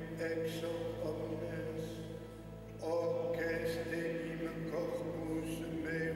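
Sung liturgical chant of the Latin Mass: long, held notes, with new phrases starting about three and five seconds in.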